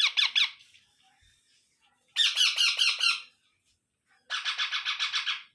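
Indian ringneck parrot calling in three bursts of rapid, harsh repeated squawks, about ten notes a second, each burst lasting about a second.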